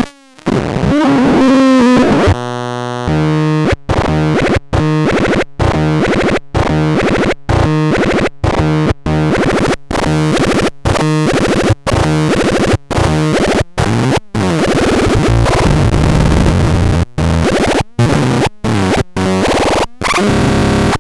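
Belzebulon R electronic noise instrument being played: noisy synthesized tones chopped by short drop-outs about once a second. There is a stuttering run of stepped tones about two and a half seconds in, and sweeping pitches around the middle.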